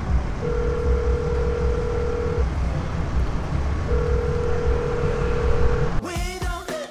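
Low outdoor street rumble of passing traffic and wind on the microphone. A steady tone sounds twice over it, about two seconds each time. Music with a beat cuts in near the end.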